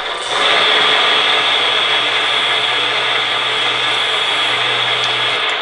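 Electric hydraulic pump of an RC truck-mounted crane running steadily, a high whine over a low hum, as the crane boom is raised. It starts about a third of a second in.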